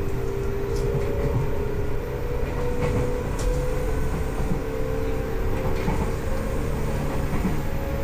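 JR 201 series commuter train running, heard from inside the car: its thyristor chopper control gives a steady whine over the rumble of the wheels on the track, with a few light clicks.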